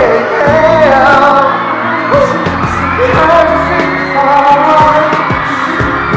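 Male vocalist singing a Korean pop song live over a pop backing track with a regular drum beat.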